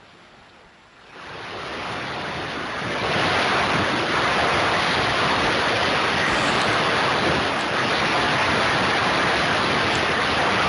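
Corded electric rotary hammer with a flat chisel bit chipping a channel into a brick-and-tuff masonry wall. It starts about a second in and builds to a loud, steady, harsh noise.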